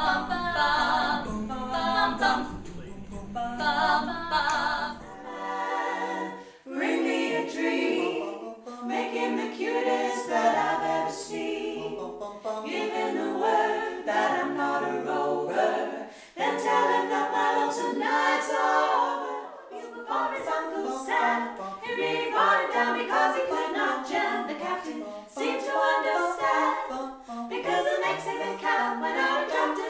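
Female barbershop quartet singing a cappella: four women's voices in close harmony, with no instruments.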